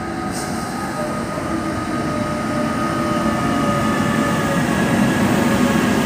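Bombardier Traxx electric locomotive hauling passenger coaches along the track, growing louder as it comes closer. Steady whining tones from its electric traction equipment ride over the rumble of its wheels on the rails.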